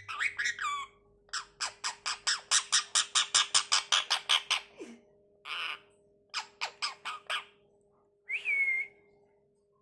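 Pet parrot squawking: a fast run of about twenty sharp, repeated screeches, roughly six a second, then a few separate calls and a short whistled call near the end.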